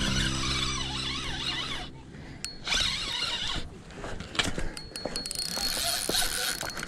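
Shimano Katana 3000 spinning reel being cranked while playing a hooked channel catfish, its gears whirring steadily. The cranking breaks off briefly about two seconds in, then goes on in shorter, uneven turns with a few clicks.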